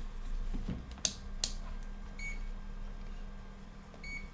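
Digital multimeter being handled and its rotary dial turned to the DC volts range: two sharp clicks, then a short high electronic beep, and two more beeps near the end.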